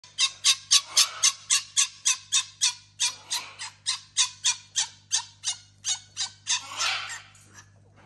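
Fennec fox giving a rapid string of sharp, high calls, about four a second, that grow quieter and slower and end in one longer, rougher call; an annoyed, protesting vocalisation.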